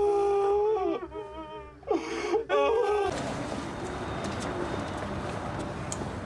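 A woman sobbing and wailing in long, drawn-out cries that break off about three seconds in, giving way to a steady outdoor background hiss and rumble.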